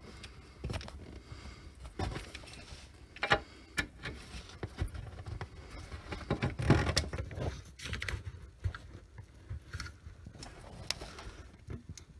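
A 1/4-inch-drive ratchet with extension and deep socket working a bolt: irregular metallic clicks and clinks of the tool. The loudest clinks come about a quarter of the way in and again just past halfway.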